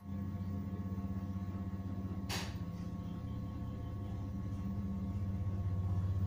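A steady low rumble with a fast, even pulse that slowly grows louder, and one sharp click about two seconds in.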